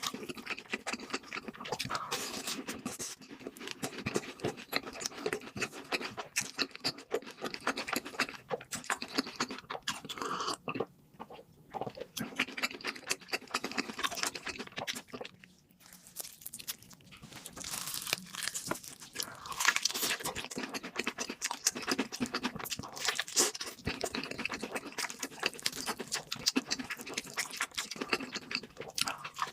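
Crunching and chewing of crispy fried food: a steady run of crackling bites with two short pauses near the middle.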